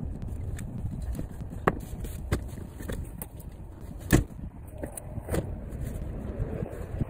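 Clicks and knocks of a 2018 Dodge Grand Caravan's stowaway (Stow 'n Go) seat being folded down into its floor well, with one loud thump about four seconds in, over a steady low rumble.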